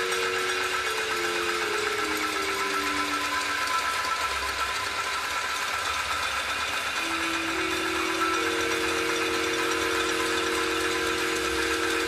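Ambient noise music: a dense steady hiss with sustained low tones layered over it, stepping down in pitch over the first few seconds and then held long in the second half.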